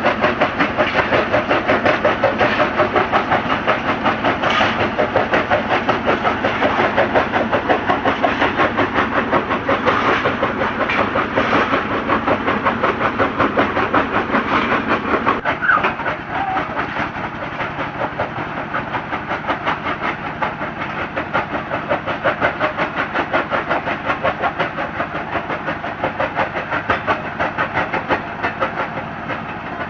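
Mini stone-crusher machine running with a fast, rhythmic clatter of about three to four beats a second. It becomes quieter and less harsh about halfway through.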